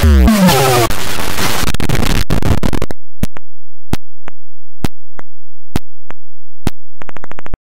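Digitally mangled audio effects: a falling pitch sweep at the start runs into loud harsh noise. Then comes mostly dead air broken by sharp clicks about once a second, and a fast buzzing stutter near the end.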